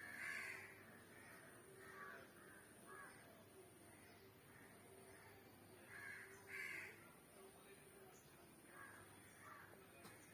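Faint crow caws, several short calls scattered through, over a low steady hum.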